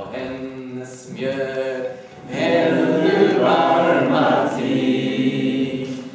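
A group of people singing together in long held phrases, with short breaks about one and two seconds in; the loudest phrase starts about two seconds in and fades near the end.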